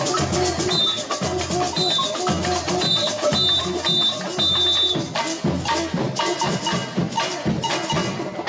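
Samba parade percussion band playing a driving rhythm: low bass-drum beats under shakers and rattling percussion, with short high notes repeating in rhythm through the first half.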